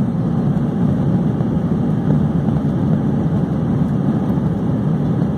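Steady low engine hum and rumble of an Airbus A320 heard inside the cabin as it moves along the taxiway, even in level throughout.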